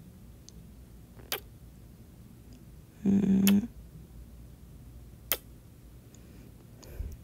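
Close-miked kissing sounds from a woman's lips: sharp lip smacks, about a second in and about five seconds in, with a short hummed "mm" around three seconds in.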